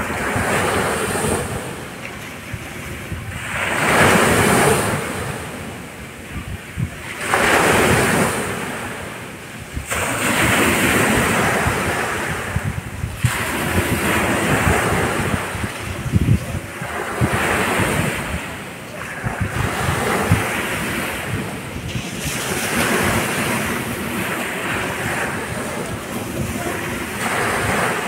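Small sea waves breaking and washing up a dark sand beach, one surge of surf every three to four seconds, the loudest about four and eight seconds in.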